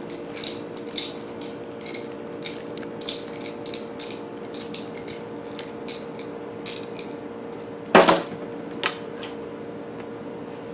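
Light metallic clicks and clinks of TV antenna parts being handled and fitted together, with one louder clatter about eight seconds in. A steady low hum runs under it.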